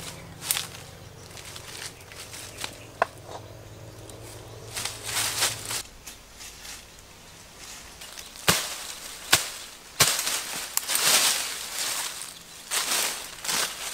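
Footsteps on loose stones and leaf litter, with leaves and undergrowth rustling and three sharp knocks about eight to ten seconds in. A low steady hum runs under the first half and stops.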